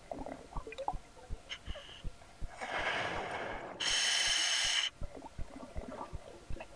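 Scuba diver breathing underwater through a regulator in a full face mask: a long exhale of bubbles about two and a half seconds in, followed at once by a louder hissing inhale. Small clicks and pops are scattered throughout.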